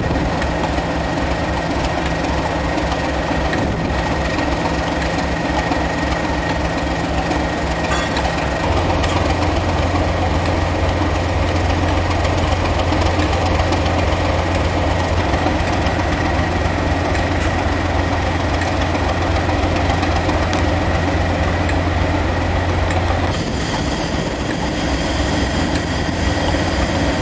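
Heritage railway train running: a steady low mechanical drone with a thin high tone above it. The drone grows stronger about a third of the way in and eases off again near the end.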